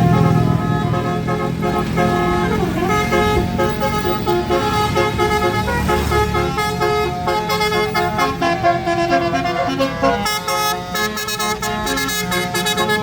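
Basuri telolet multi-tone bus horn playing a tune, its notes stepping from one pitch to the next, over a bus engine's low rumble.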